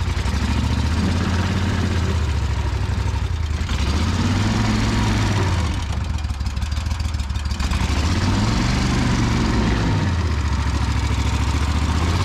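Surface-drive mud motor's air-cooled engine running hard, revving up and easing off several times under load as the boat is pushed through thick marsh grass and reeds.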